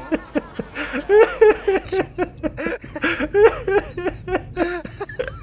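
Laughter: a continuous run of short, high-pitched giggles.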